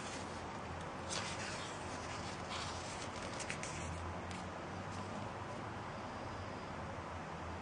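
A page of a large printed book being turned by hand: paper rustling and sliding, with a few crisp crackles, between about one and four seconds in. A steady faint hiss lies underneath.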